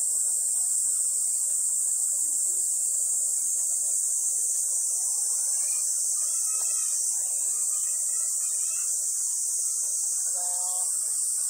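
Steady, high-pitched insect chorus in the enclosure's outdoor surroundings, with faint distant voices now and then.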